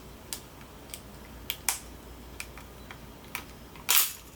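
The plastic top cover of a Sony A6000 camera is being worked loose. There are scattered small sharp clicks and ticks, then a louder, longer crackle near the end.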